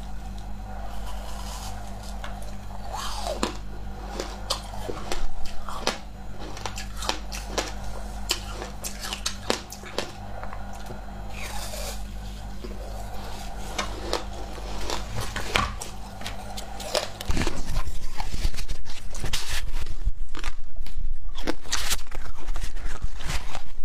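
Teeth biting into and chewing a slab of frozen ice: repeated sharp cracks and crunches. A low steady hum runs under the first part and stops about seventeen seconds in, after which the chewing is louder and denser.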